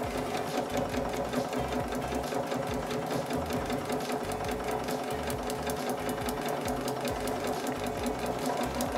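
Electric sewing machine stitching steadily forward through fabric and a paper foundation: a steady motor hum with rapid, even needle ticks.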